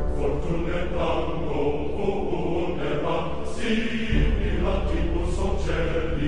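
Background music: layered, chant-like voices over a deep, steady bass that grows stronger about four seconds in.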